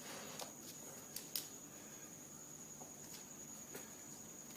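Faint sounds of a dog settling onto her blanket on a tiled floor: a soft rustle at the start, then a few light clicks and taps, the sharpest two close together about a second in. A steady high-pitched whine runs underneath.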